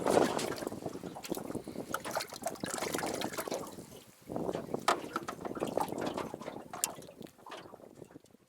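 Water splashing and sloshing in irregular bursts, with a short lull about four seconds in, fading toward the end.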